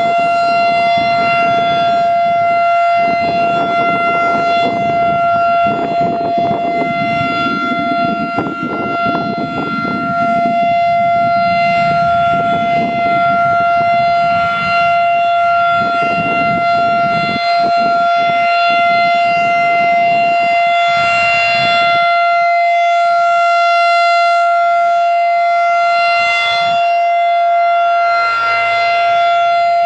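Federal Signal 2001-SRN rotating outdoor warning siren sounding a loud, steady single tone at full pitch. Its upper tones swell and fade every several seconds as the horn turns.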